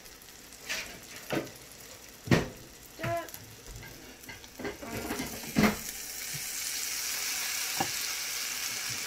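Eggs with chopped sausage, peppers and tomato sizzling in a black skillet, with a spatula knocking and scraping against the pan several times. The sizzle gets louder about halfway through.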